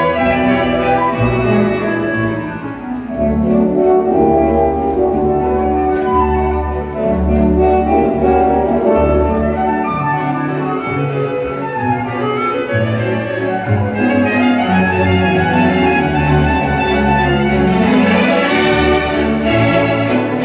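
Orchestral classical music with bowed strings to the fore, sustained melodic phrases running without pause.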